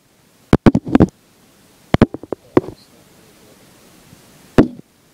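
Handling knocks and clicks from a toy M4A1 BB gun held right at the microphone: a quick cluster about half a second in, another around two seconds, and a single knock near the end.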